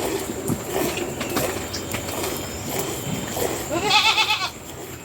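A goat bleating once, a loud quavering call about four seconds in, with fainter sounds before it.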